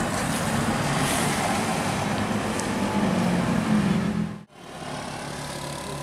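Large coach's diesel engine running as the bus passes close by. About four and a half seconds in, the sound cuts off suddenly and comes back quieter, with engine noise from further off.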